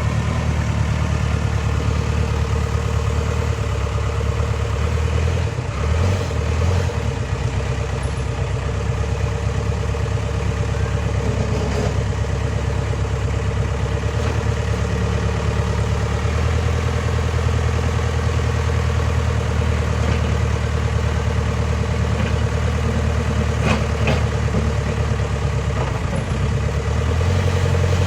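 Backhoe loader's diesel engine running steadily, its note shifting briefly about six seconds in and again near the end.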